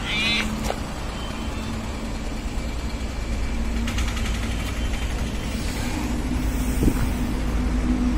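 Steady low rumble and hum of a motor vehicle engine, with a brief high wavering call right at the start and a short clicking patch about four seconds in.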